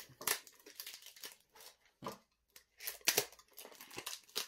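Thin clear plastic deli cup and lid being handled and opened: an irregular string of sharp plastic clicks and crinkles.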